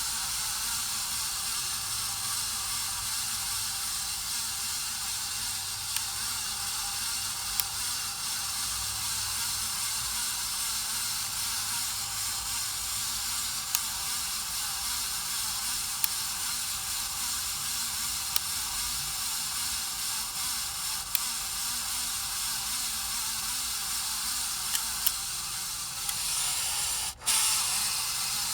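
53-inch Casablanca Spirit of Saturn ceiling fan running with a steady, rough hiss and occasional sharp ticks from its bad bearings. The sound dips out briefly near the end, then comes back louder.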